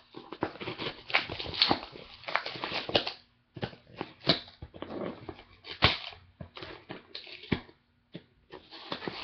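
A screwdriver scraping and prising at the packing tape on a cardboard box: irregular scratchy rustling broken by a few sharp clicks.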